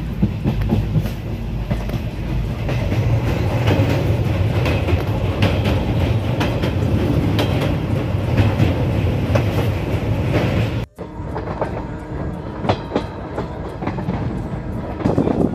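Passenger train running, heard from inside a carriage at an open barred window: a steady low rumble with the clickety-clack of the wheels over rail joints. About two-thirds of the way through the sound drops out for an instant and comes back thinner, with less rumble.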